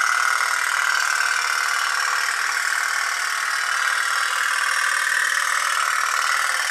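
Tin pop-pop boat running: its candle-heated steam boiler making a steady putt-putt popping.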